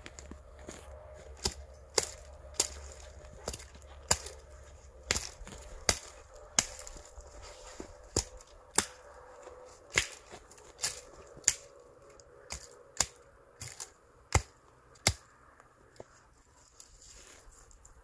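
Hatchet chopping small dead branches: a series of sharp, irregular blows into wood, roughly one to two a second, stopping a few seconds before the end.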